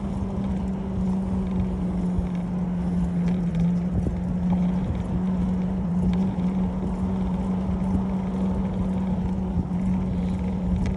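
Bicycle rolling along an asphalt street, with wind rumble on the microphone and a steady low hum.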